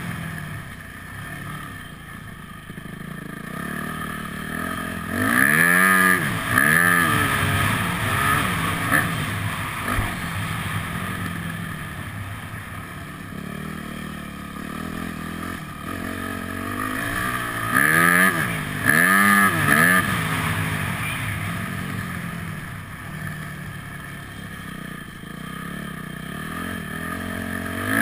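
Yamaha motocross bike's engine running as it is ridden round a dirt track, the revs rising and falling with the throttle. It revs hard in quick surges twice, about five seconds in and again near the middle.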